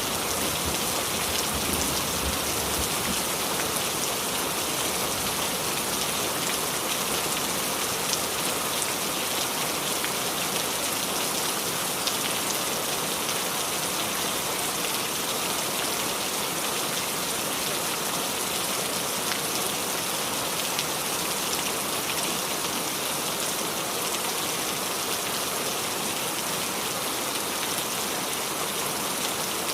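Steady rain falling on a small tree's leaves, an even hiss with scattered faint drips.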